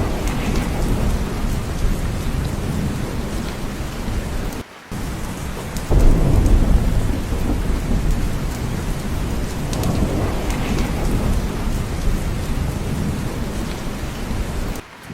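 Heavy rain falling steadily with low rolling thunder underneath. The sound cuts out briefly a little under five seconds in, then a louder rumble of thunder swells about six seconds in.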